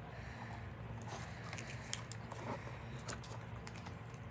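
Faint scattered clicks and crackles of hands squeezing and forcing a soft pea pod toy, struggling to push out what is inside.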